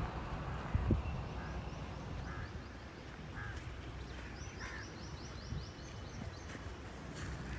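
Outdoor ambience with a steady low rumble and birds calling: a few short chirps, then a rapid trill of high, evenly spaced notes for about two seconds past the middle. A soft thump comes about a second in.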